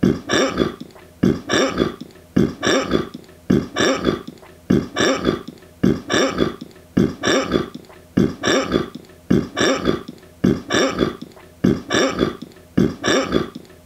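A short throaty vocal sound repeated at a strict steady beat, two at a time, each pair coming about every 1.2 seconds like a loop.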